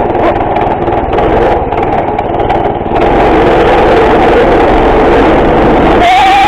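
Harbor Freight Predator 212 cc single-cylinder go-kart engine running under throttle as the kart drives, getting louder about three seconds in. A short high-pitched cry comes near the end.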